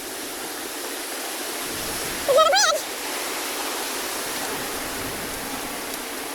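Mountain stream rushing steadily over rocks. About two seconds in, a brief loud wavering voice-like call rises over the water.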